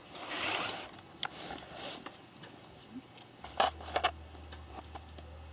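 Handling of a small plastic figma action figure on its clear plastic stand: a short soft rustle, then a few sharp little plastic clicks and taps as it is positioned. A faint low hum comes in about halfway through.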